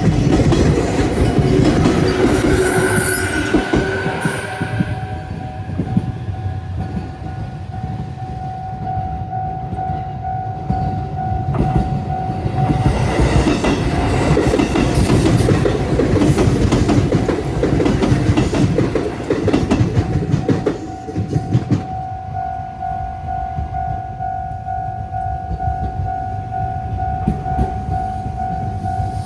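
A Japanese level-crossing warning bell rings steadily while a train rumbles and clatters over the crossing, its wheels loudest in the middle. A train horn sounds briefly a few seconds in.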